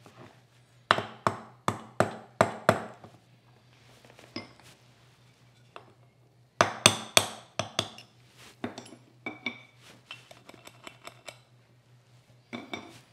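Sharp metal-on-metal taps in two quick runs of several strikes each, the first about a second in and the second near the middle, followed by lighter metallic clicks: a pin being tapped into the cast-iron frog of a Stanley Bedrock 604-1/2 hand plane.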